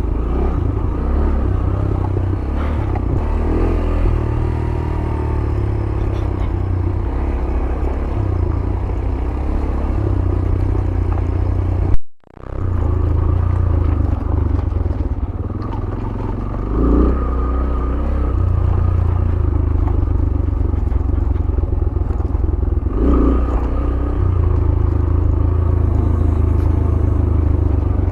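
Yamaha YBR 125G's single-cylinder four-stroke engine running at low, steady throttle while riding down a rough dirt track, with clatter from the bike over the rough ground. The sound cuts out for a split second about twelve seconds in.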